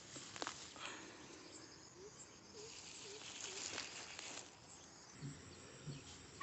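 Faint insects chirping in grass, with a couple of sharp clicks about half a second and nearly four seconds in.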